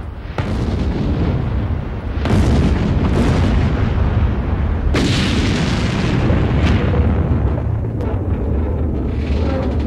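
A series of explosion blasts, about four sharp ones roughly two seconds apart, each fading away over a continuous deep rumble.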